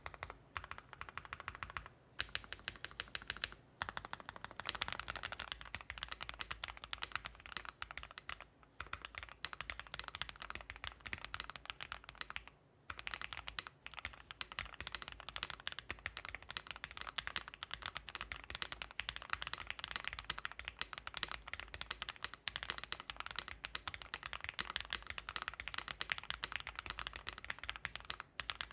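Fast, continuous typing on a mechanical keyboard with factory-lubed Gateron x Swagkeys Deepping linear switches (nylon housings, POM stems) mounted on a polycarbonate plate. The typing breaks off briefly about four seconds in and again near the middle.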